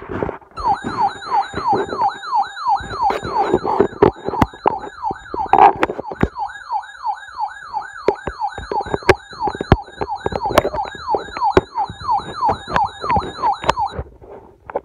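An electronic yelp-style siren, its pitch sweeping up and dropping about three times a second, starting about half a second in and cutting off near the end. Sharp crackling clicks run through it.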